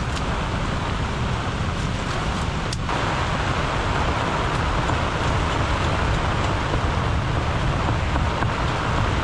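Strong tropical-storm wind gusting against the microphone: a steady rushing noise over a deep rumble.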